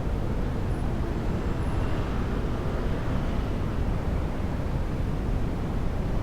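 Steady low rushing noise, heaviest in the low end, with no distinct events.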